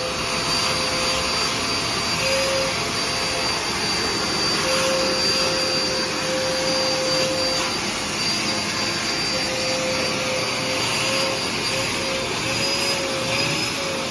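Vacuum cleaner running steadily: a constant rush of air with a steady whine over it.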